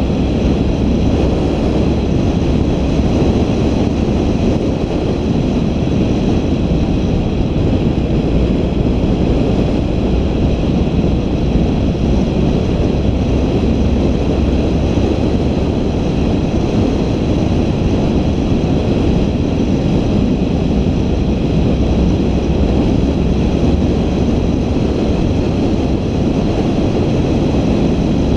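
Steady rumble of a vehicle on the move, with wind noise on the microphone.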